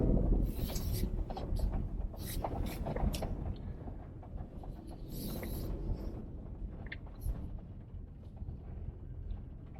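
A vehicle driving over a rough dirt track: a steady low rumble with frequent knocks and rattles.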